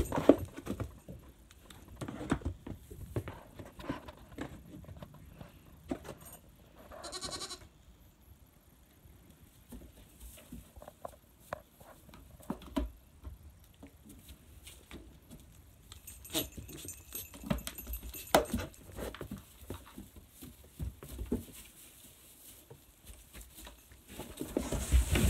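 Young goats eating grain from a hand and a plastic feed tub: scattered soft crunching, rustling and small taps, with one short goat call about seven seconds in.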